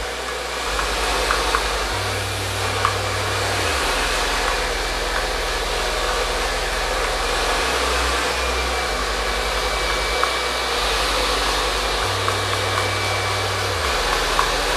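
Handheld hair dryer running steadily, its nozzle blowing close onto short wet hair, with a few light clicks.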